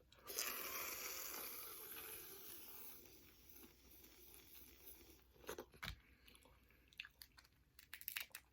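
Faint close-up eating of a boiled crawfish. A soft hiss fades out over the first few seconds, then scattered crunches and clicks of shell being cracked and chewed.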